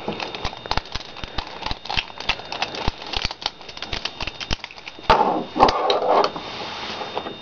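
Irregular plastic clicks and clacks of a Rubik's Snake's wedge segments being twisted and handled.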